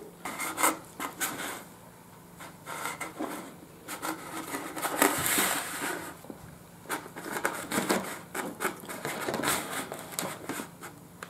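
Borzoi eating, with irregular clicks, licks and chewing, and the small food box scraping and knocking on the wooden board beneath it. One longer, louder scrape comes about five seconds in.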